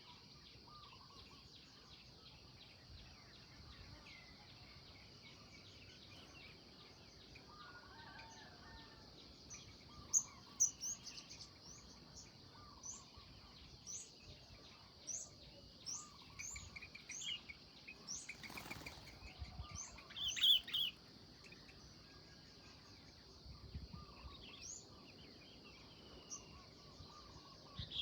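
Wild birds chirping and calling: a run of short, high chirps that grows busy about a third of the way in and thins out again, over a steady high hiss. A brief whoosh comes partway through.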